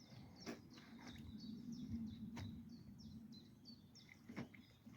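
Faint birdsong: a small bird singing a long run of quick, high chirps, with a few soft clicks scattered through it.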